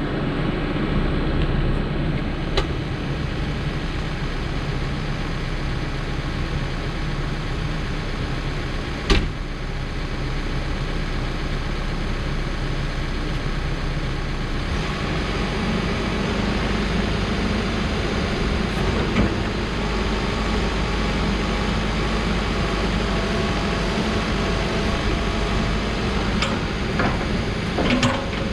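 Diesel engine of a 2013 Case 590 Super N backhoe loader running steadily while it is being operated, its sound getting heavier about halfway through. A single sharp knock sounds about nine seconds in.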